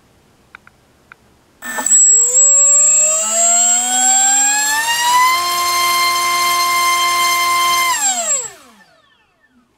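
MultiStar V-Spec 2205 2350kV brushless racing-quad motor spinning a Dalprop 4x4.5 three-blade prop on a 3-cell battery: a loud whine that starts about one and a half seconds in, rises in pitch as the throttle comes up, holds steady at the top for a few seconds, then winds down and stops near the end.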